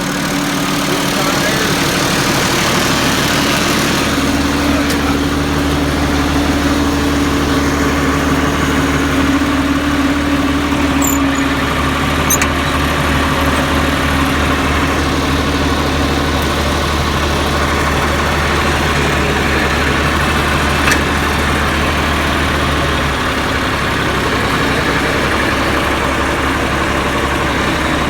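Massey Ferguson tractor's diesel engine running steadily at a low speed; its deep low rumble eases off about 23 seconds in.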